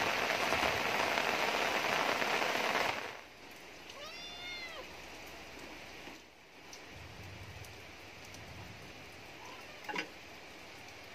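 Heavy rain falling, which cuts off abruptly about three seconds in. A cat then meows once, a call rising then falling in pitch, about four seconds in, with a faint steady background after it. A single sharp click comes near the end.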